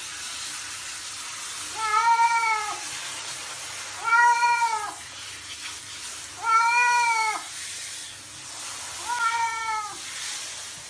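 A wet cat meowing four times while it is showered, each meow a drawn-out call that rises and falls in pitch. A steady hiss of spraying shower water runs underneath.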